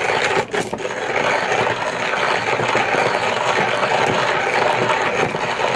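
Porlex Mini stainless steel hand coffee grinder being cranked steadily, its ceramic conical burrs crushing whole coffee beans in a continuous crackling grind, with a brief break about half a second in.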